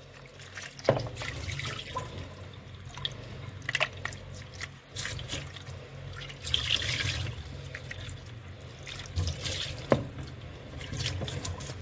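Kitchen tap running into a sink at low pressure while a container of salad leftovers is rinsed, with water splashing off it. Two sharp knocks of dishware against the sink come about a second in and near the end.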